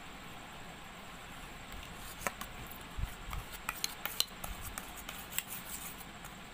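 A steel spoon stirring a thick glue-and-baking-soda slime mixture in a stainless steel bowl, clinking and scraping against the bowl in irregular ticks that start about two seconds in.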